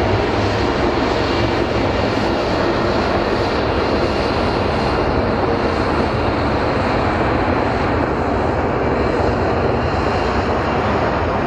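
Bell CH-146 Griffon twin-turbine helicopter running close by: a loud, steady rush of turbines and rotor with a low hum underneath, the highest tones easing a little in the last few seconds.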